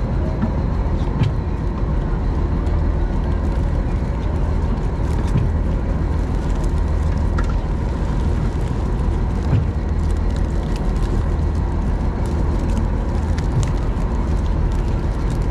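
Fishing boat's engine running steadily, a low, even drone with a few faint knocks on deck.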